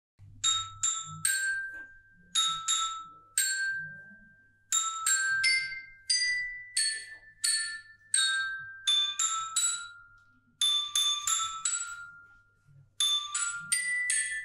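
End-screen music: a light tune of single high notes played on mallet percussion, each struck note ringing and fading before the next, starting about half a second in.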